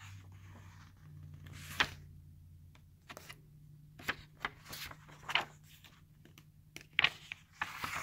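Pages of a paperback book being turned by hand, with several brief rustles and flicks of paper: one about two seconds in, then a cluster from about four seconds in to near the end.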